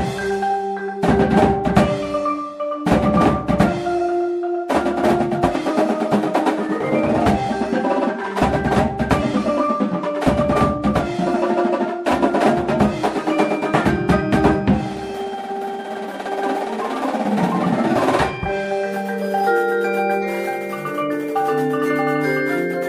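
Upbeat music with drums under a mallet-percussion melody. The drums drop out about 18 seconds in, leaving the mallet notes.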